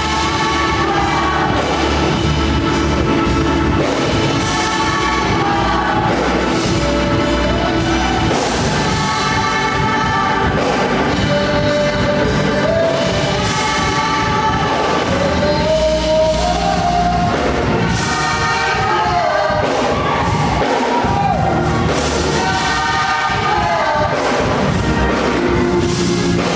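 Gospel praise music: singers over a band with a steady drum beat and strong bass.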